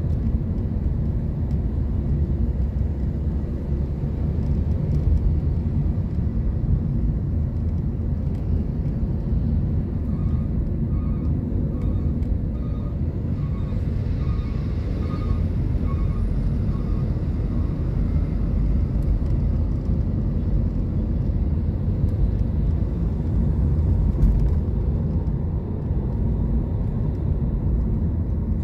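Steady low road and engine rumble of a car driving in city traffic, heard from inside the cabin. From about ten seconds in to about seventeen, a run of short even beeps sounds about twice a second.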